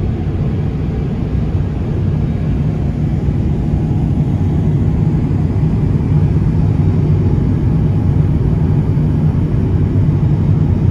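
Airbus A350-900 airliner heard from inside the cabin during takeoff: a steady, loud low rumble of its Rolls-Royce Trent XWB engines and airflow, growing slightly louder.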